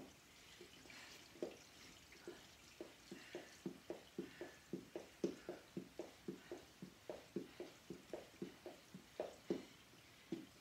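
Soft, rhythmic thuds of feet landing on a floor mat during mountain climbers, about three a second.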